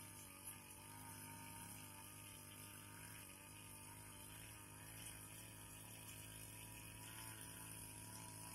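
Backpack brush cutter's small engine running steadily and faintly, its pitch wavering slightly as the cutter works through the grass.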